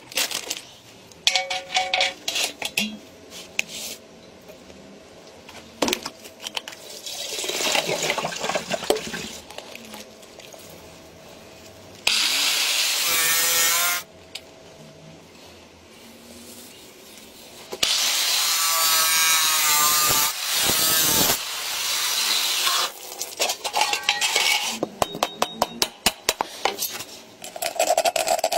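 Workshop sounds of hand-building: sawing and rubbing on wood, scattered clicks and knocks, and two loud bursts of a few seconds each around the middle.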